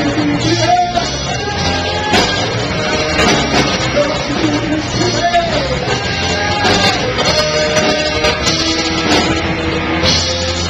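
Live rock band playing through a PA: amplified guitars with a singer's voice carrying the melody over a steady beat.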